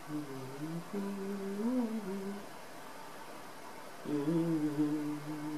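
A man humming a tune to himself in long held notes, with a pause of about a second and a half in the middle.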